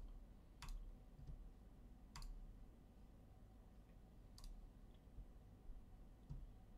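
Near silence broken by three faint, sharp single clicks, spaced one and a half to two seconds apart.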